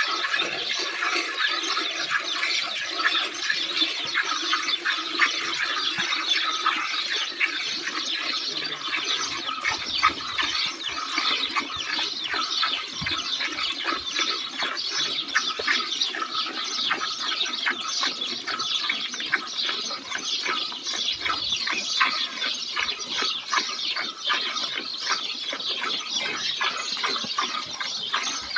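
A cow being milked by hand: streams of milk squirting into a steel bucket, stroke after stroke in a steady rhythm.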